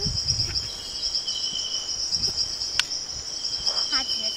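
Meadow insects chirring steadily, a high, fast-pulsing buzz, with one short click about three seconds in.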